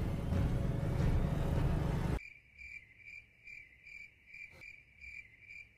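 A loud rushing noise cuts off abruptly about two seconds in. It gives way to crickets chirping evenly, about two short high chirps a second.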